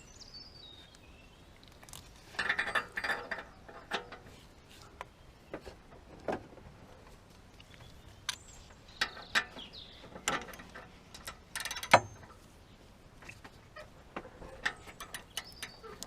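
Irregular metallic clinks, rattles and knocks of a hand tool being fitted and worked on a car's exhaust oxygen sensor, with a short clatter early on and one sharp knock about three-quarters of the way through.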